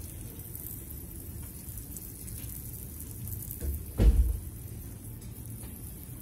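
Watering wand spraying water over potted succulents with a faint steady hiss, and a dull knock about four seconds in, with a smaller one just before it.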